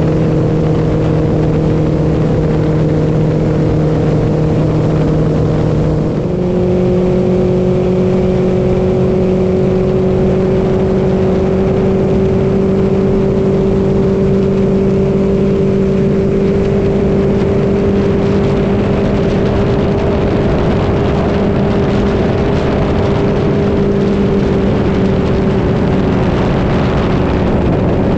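Mercury Pro XS outboard motor running at speed, heard close up over the rush of water from the hull. Its engine note steps up to a higher pitch about six seconds in and then holds steady.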